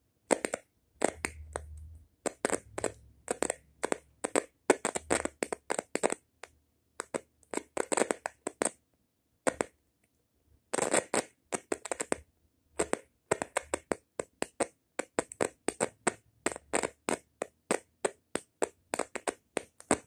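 A rapid, irregular run of sharp clicks and crackles, several a second, with a couple of short pauses, the longest about halfway through.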